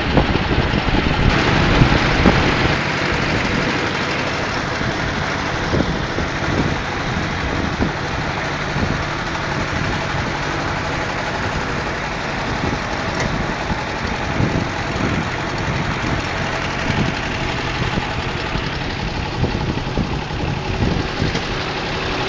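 Tractor engine running steadily, heard from on board while the tractor drives along.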